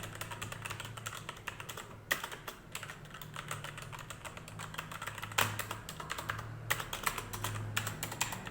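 Fast typing on a Cosmic Byte CB-GK-11 mechanical keyboard with brown (tactile) switches: a dense, soft run of key clacks, with a few louder strikes.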